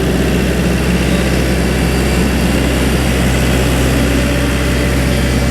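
Skid steer engine running steadily at a constant speed, a loud even low hum.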